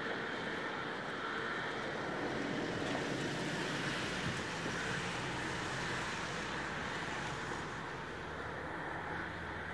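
The Overland passenger train, led by NR class diesel NR45, receding into the distance: a steady rushing rumble that slowly fades, with wind on the microphone.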